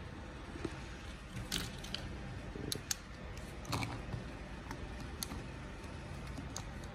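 Plastic pens and pencils being set down one by one on a notebook, a string of light clicks and taps over a faint steady hum.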